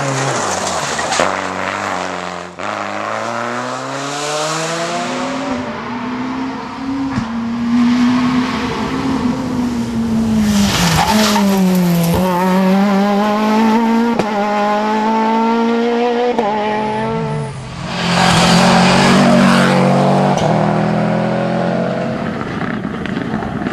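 Rally cars driven flat out on a tarmac stage, engines revving hard, climbing and dropping sharply on gear changes and braking. There are bursts of tyre noise, and a few passes are cut one after another.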